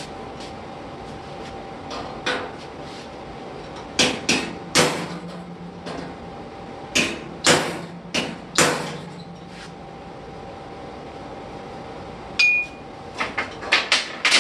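Hammer blows on a railroad spike used as a chisel, driving into the old steel body panel of a car to push a spot in: about fourteen sharp metallic strikes in irregular groups with pauses between.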